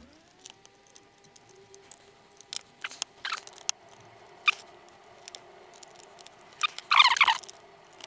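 Small clicks and scrapes of a screwdriver undoing the screws that hold a 2.5-inch hard drive caddy in a laptop, with a louder cluster of scraping clicks about seven seconds in. A faint steady hum runs underneath.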